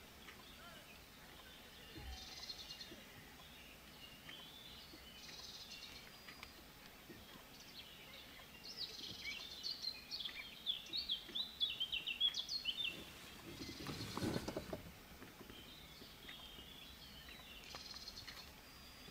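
Songbirds singing in short high phrases, with a fast, loud run of chirps in the middle. A brief rushing noise about two thirds of the way through.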